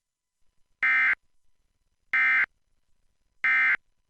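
Emergency Alert System end-of-message (EOM) data bursts: three short bursts of digital modem tone, each about a third of a second long and a little over a second apart, signalling the end of the alert.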